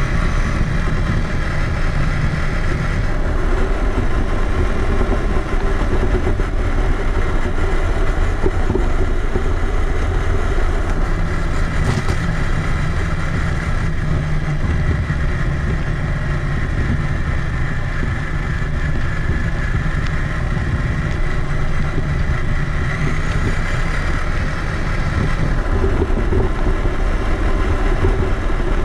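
Traxxas Summit 1/10-scale electric RC truck driving, heard from a camera mounted on the truck itself: motor and gear whine with heavy rumble from the tyres and chassis. The pitch shifts a few times as the throttle changes.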